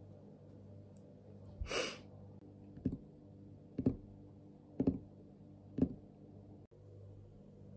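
Fingers drumming on a tabletop: four quick finger rolls about a second apart, after a short sigh near the start, over a low steady room hum.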